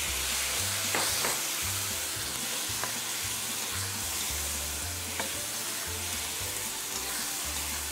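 Chopped tomatoes, ginger slices and star anise sizzling in Sichuan pepper oil in a wok, stir-fried with a metal wok spatula. The spatula scrapes and clicks against the pan a few times over the steady sizzle.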